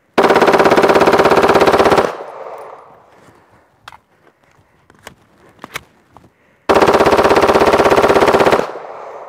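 Full-auto Glock 17 with an auto sear firing two long bursts of 9mm, each about two seconds, the shots too rapid to separate, each burst trailing off in echo. The pistol is cycling reliably under sustained fire in a meltdown test.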